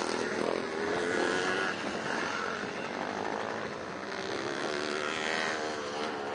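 Several vintage motocross bikes' engines running around the track at once, their pitch rising and falling as the riders open and close the throttle.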